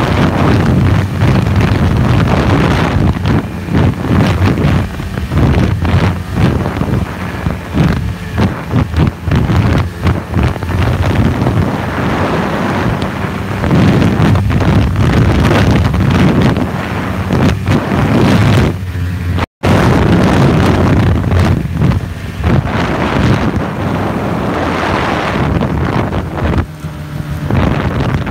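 Snowmobile engine running steadily under way, with heavy wind buffeting the phone's microphone. The sound cuts out for an instant about two-thirds of the way through.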